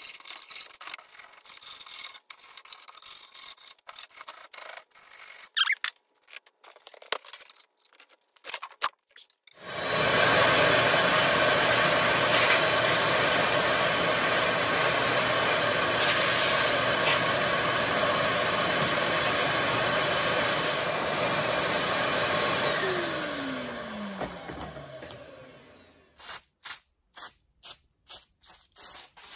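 Scattered scrapes and clicks as rust grit is cleared by hand from the bottom channel of a steel car door. Then a wet/dry shop vacuum starts and runs steadily for about thirteen seconds, and is switched off, its motor winding down with a falling whine. Near the end comes a quick run of rattling clicks.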